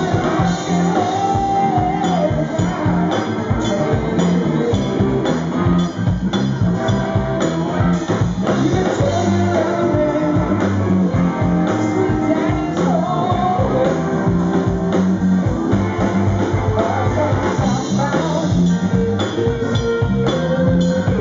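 Live rock band playing: a male lead vocalist singing over electric guitar, bass and drum kit.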